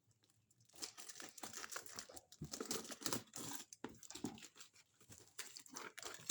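Packaging crinkling and rustling in irregular crackles as a box is unpacked by hand, starting about a second in.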